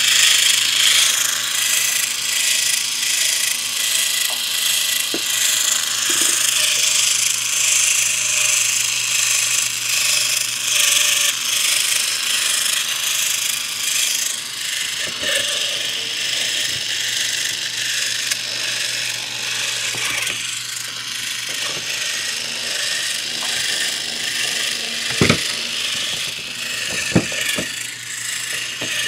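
Small electric motor and gears of a motorized Thomas Wooden Railway Lady toy engine running steadily with a whirring sound, its wheels driven. Two short knocks come near the end.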